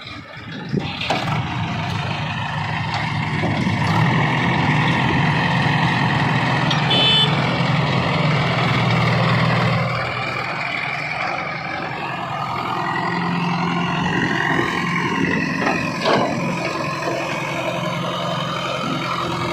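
A backhoe loader's diesel engine working under load. The engine note rises about four seconds in and eases off around ten seconds. There is a short beep about seven seconds in, and sharp knocks near the start and around sixteen seconds.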